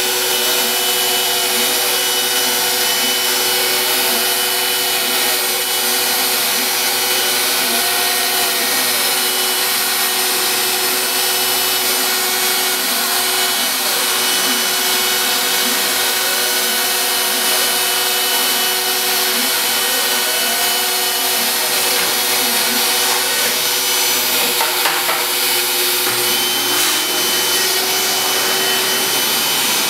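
Home-built CNC router at work: the router spindle runs steadily while cutting MDF, and the stepper motors whine in repeated rising-and-falling sweeps as the machine traces the curves of the toolpath.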